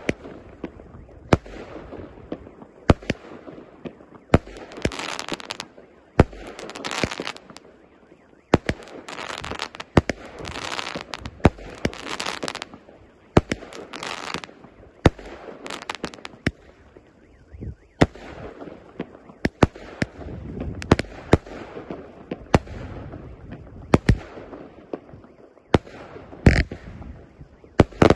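A 49-shot, 0.8-inch firework cake firing shot after shot. Sharp bangs come about once a second, and each is followed by about a second of hissing and crackling from the bursting stars.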